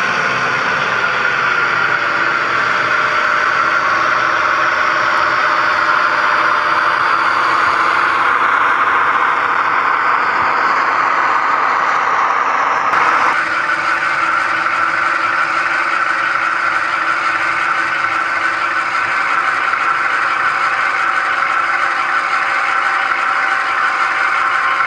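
Diesel engine sound from a model locomotive's DCC sound decoder, played through its small onboard speaker and running steadily, with some rattle of the model's wheels on the track. About 13 seconds in, the sound changes abruptly to a different engine note.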